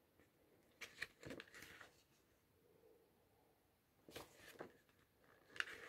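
Faint rustles of a glossy paper catalogue's pages being handled and turned by hand, in three brief clusters: about a second in, just after four seconds, and near the end. Otherwise near silence.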